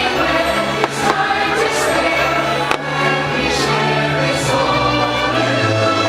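Choral and orchestral fireworks-show music playing loudly over outdoor speakers, with a few sharp firework bangs about one and three seconds in.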